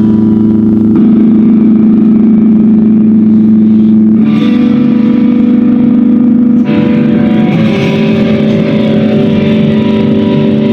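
Guitar music with held chords that change every few seconds.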